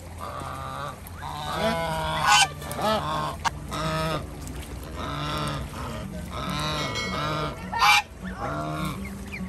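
White domestic geese honking again and again, several calls following close on one another, with two louder honks, one about two and a half seconds in and one near the end.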